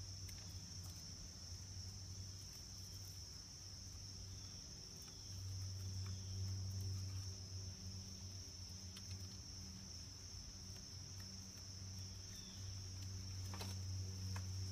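Insects chirring steadily at a high pitch, with a low hum underneath that grows louder about five seconds in and again near the end, and a few faint clicks.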